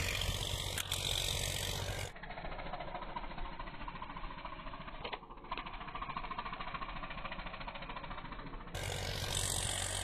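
A tractor engine running steadily across the field under wind noise, with a sharp snap about a second in as the slingshot is loosed. For most of the rest the sound turns muffled and dull, with a single click near the middle.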